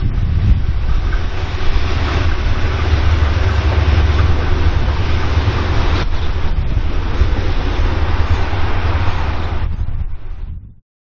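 A light engine consist of diesel-electric locomotives led by Pacific National 81-class 8114, with its EMD V16 two-stroke diesel, rumbling past with wheel and rail noise. The sound fades out near the end.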